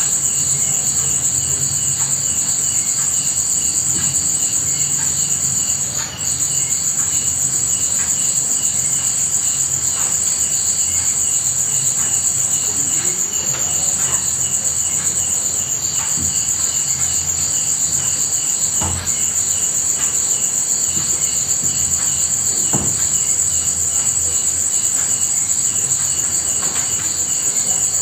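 Crickets chirping in a steady, high-pitched chorus, with a second, quicker pulsing trill beneath and scattered faint ticks.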